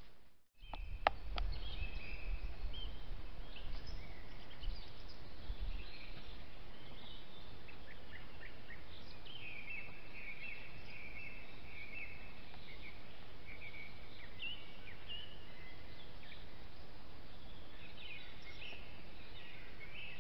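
Small birds chirping and singing in the woodland, a busy run of short high calls, over a steady hiss from the trail camera's microphone. A sharp click comes about a second in, and low rumbling over the first few seconds.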